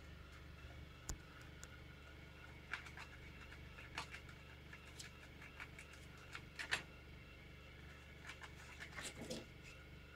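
Pet gerbils' claws scrabbling and tapping on a hard windowsill: faint, irregular small clicks and scratches over a low steady hum.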